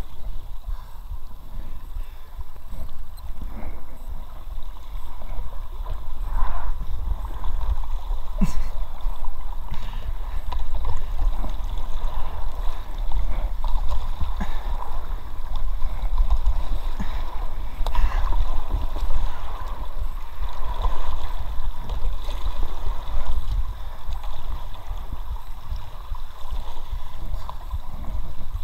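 Shallow brook water rippling and gurgling around a drifting inflatable kayak, over a steady low rumble, with a few sharp clicks.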